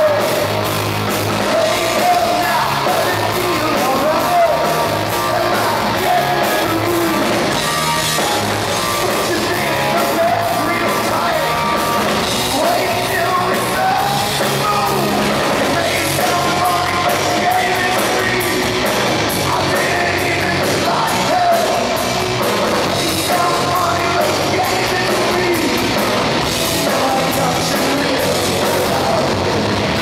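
Progressive metal band playing live and loud: amplified electric guitar, bass guitar and drums, with a sung vocal line wavering over the top.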